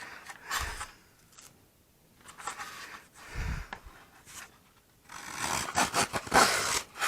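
Small hand plane shaving a balsa wood leading edge: a run of short scraping strokes, the longest spell near the end, counted so that the same amount comes off each side.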